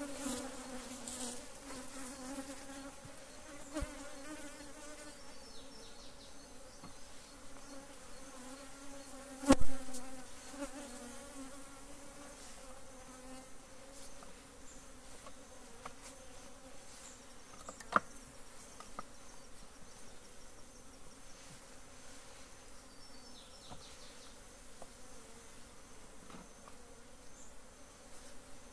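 A cloud of disturbed honeybees buzzing around an opened hive: a steady hum that is strongest at first and fades off after the middle. A sharp knock comes about nine and a half seconds in, and a lighter click near 18 seconds, as hive boxes are handled.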